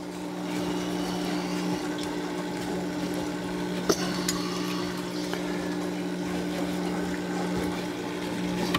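Hydroponic system's water pump running with a steady hum, and water splashing and trickling as it recirculates, with a single light knock about four seconds in.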